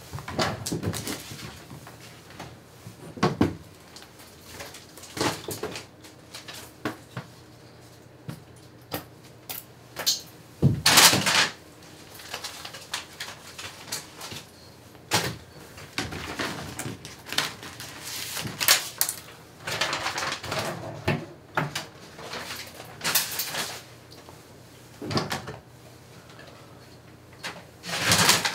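Irregular rustles, taps and knocks of papers being handled and pinned on a corkboard in a small room, some strokes louder than others, over a faint low hum in the first half.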